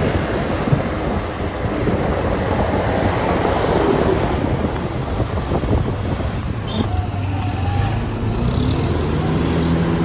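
A tour bus's engine running close by as it moves past, with wind buffeting the microphone.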